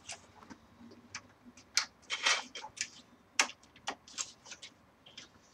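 Computer parts being handled during a PC build: scattered, irregular light clicks and taps, with a cluster about two seconds in and the sharpest click about three and a half seconds in.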